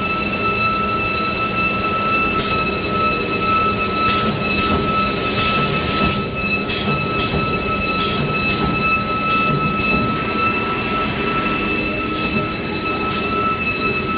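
Toilet paper converting machinery running: a steady high whine over a mechanical din, with sharp irregular clacks and a hiss for a second or so about five seconds in.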